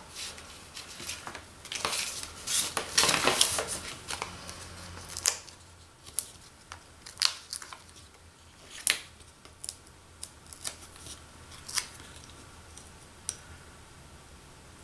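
Paper-craft handling: rustling and crinkling as foam adhesive dimensionals are peeled from their sheet during the first few seconds. This is followed by scattered light clicks and taps as the small paper circles are picked up and pressed together.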